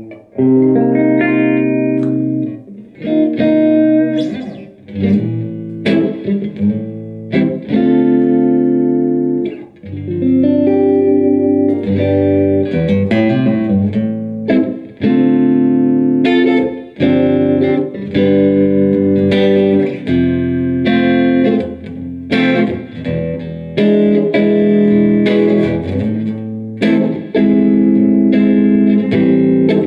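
Electric guitar (James Tyler Variax JTV-69) played through a Line 6 Spider Valve MKII on its Crunch Blue model, an emulation of an Orange AD30TC Class A head, with the drive turned fully down and a little reverb: chords and short phrases ring out, with brief breaks between phrases.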